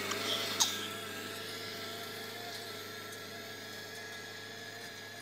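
Tractor engine running steadily while pulling a disc harrow through a stubble field, growing slowly fainter as it moves away. One short click about half a second in.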